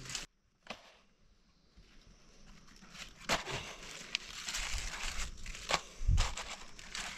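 Rustling and crackling handling noise, with a few sharp clicks and a dull thump about six seconds in. A near-silent gap comes just after the start.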